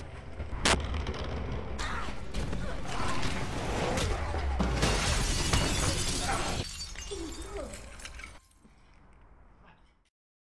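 Glass breaking and shattering, a dense crash of clattering fragments that lasts several seconds, preceded by a sharp knock. It fades out near the end.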